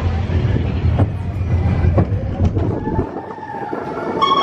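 Big Thunder Mountain Railroad mine-train roller coaster rolling along its track: a low rumble with a few sharp clacks. The rumble drops off about three seconds in.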